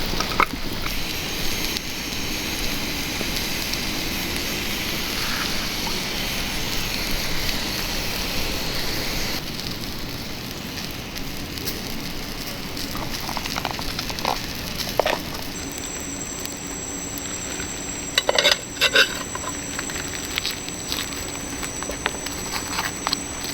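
Campfire crackling with rain pattering, scattered small clicks and a short run of sharp knocks near the end. The texture changes abruptly twice, and a thin high steady tone comes in about two-thirds of the way through.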